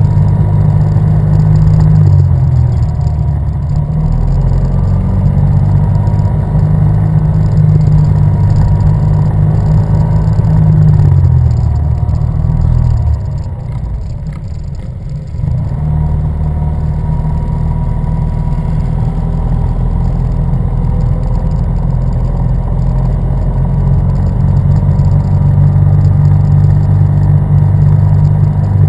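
Yamaha TMAX maxi-scooter's parallel-twin engine running at steady cruising revs, heard close from the rider's own scooter, easing off and quieter for a couple of seconds about halfway through before pulling again.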